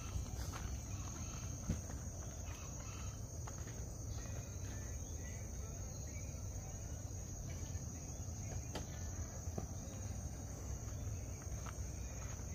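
Insects droning with a steady high-pitched tone, over a low rumble.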